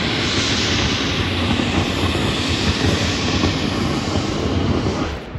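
Shay geared steam locomotive venting steam with a loud, steady hissing rush that drops away about five seconds in.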